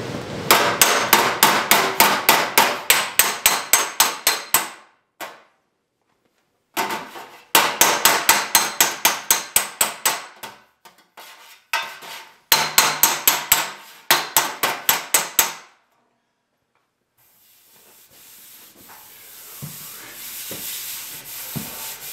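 Hammer blows on a steel sheet-metal repair panel clamped in a bench vise, in three quick runs of about three to four blows a second, shaping the panel to a smooth curve. Near the end a soft rubbing hiss follows as a hand is run across the metal.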